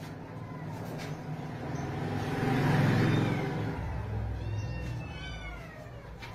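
A low rumbling noise swells and fades through the middle. About five seconds in come a few short, arching calls from caged parakeets and cockatiels.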